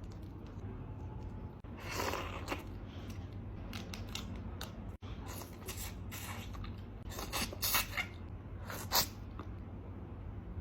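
Close-up eating sounds of raw shrimp: scattered short crackles and wet clicks from shells and chewing, louder in clusters about two seconds in and again near the end, over a steady low hum.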